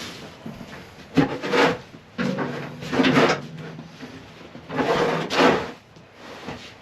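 Three long scrapes of something pushed or dragged across a wooden surface, with quieter rustling between them.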